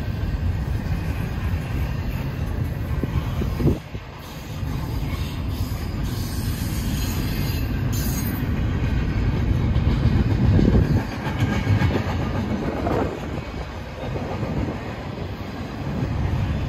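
Double-stack intermodal well cars rolling past: a steady rumble and rattle of steel wheels on rail, dipping briefly about four seconds in. A few short wheel squeals come near the middle.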